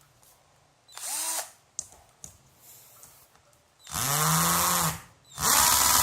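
12V cordless drill run unloaded in trigger pulls: a brief whir about a second in, then two longer, louder runs near the end, each spinning up and winding down in pitch. A couple of small clicks come between the first and second runs.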